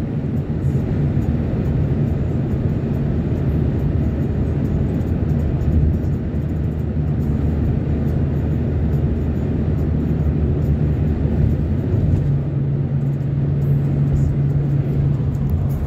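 Van driving at highway speed, heard from inside the cabin: steady engine and road noise, with a low drone that grows more prominent about twelve seconds in.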